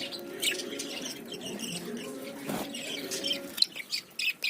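Pet budgies and finches chirping and twittering, many short quick calls overlapping, with a steady low hum underneath that stops about three and a half seconds in.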